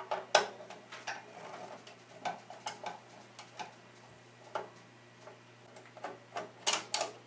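Irregular clicks and taps of a screwdriver working at a stubborn screw on the plastic CPU fan shroud inside a desktop computer case, with plastic and metal knocking as the shroud is handled. The loudest clicks come about half a second in and again near the end.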